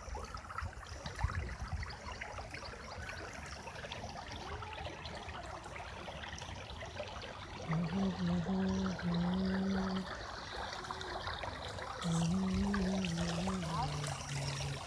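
Irrigation water running into a field, a steady trickling flow. Twice, from around the middle and again near the end, a low humming tone joins in for two to three seconds.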